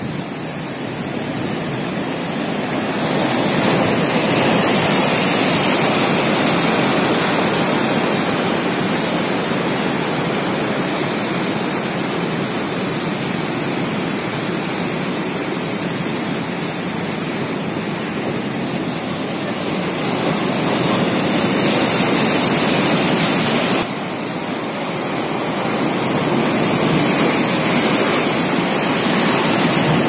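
Sea surf breaking and foaming over rocks: a continuous rush of water that swells louder a few seconds in and again around twenty seconds in, then drops off suddenly about twenty-four seconds in.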